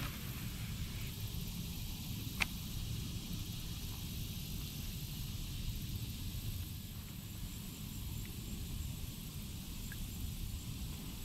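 Outdoor background noise: a steady low rumble with a faint high hiss, and one sharp click about two and a half seconds in.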